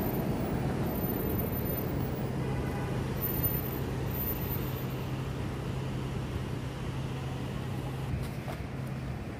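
Steady low rumble of city background noise with a constant low hum, easing off slightly toward the end.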